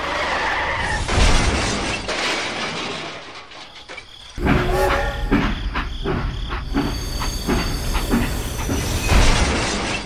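Rumbling, train-like running noise, then from about four and a half seconds a crash: a string of clattering knocks with short metallic ringing, as the toy train is wrecked and derails.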